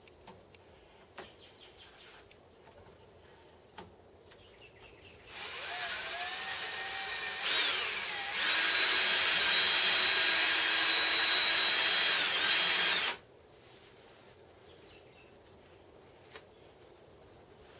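Electric drill running for about eight seconds, spinning a shaft to run in its bearings. Its whine rises in pitch and gets louder a couple of seconds in, holds steady, then cuts off suddenly. A few light clicks of handling come before and after.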